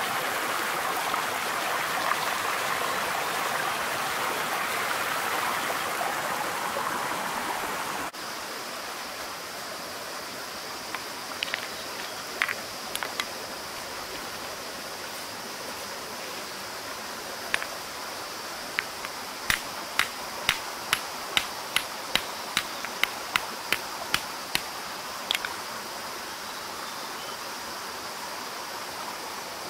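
A stream running over rocks, close and loud for the first eight seconds, then fainter. In the second half comes a run of sharp clicks of rock being tapped, about two a second for several seconds.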